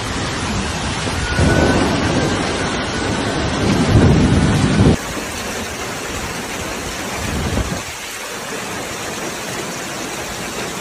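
Heavy storm rain pouring with loud low rumbling for a few seconds, then an abrupt change at about five seconds to a steadier hiss of rain, with one more short rumble a couple of seconds later.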